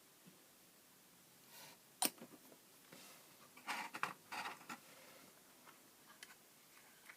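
Small plastic model-kit parts being handled on a work surface: a sharp click about two seconds in, then a short cluster of clicks and rustling around four seconds in, with a few light ticks.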